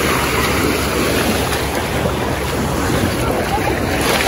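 Shallow sea water washing and lapping in small waves, with wind buffeting the microphone.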